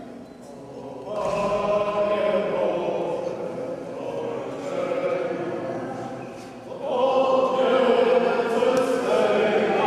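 A congregation singing together in a church, many voices in long sung phrases, with a short break about six and a half seconds in before the next phrase.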